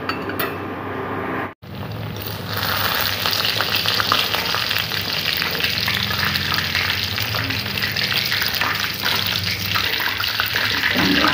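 Mendoan (battered tempeh fritters) sizzling in hot oil in an aluminium wok, a steady hiss starting about two seconds in, with light clicks of the metal skimmer and tongs as the fritters are lifted out.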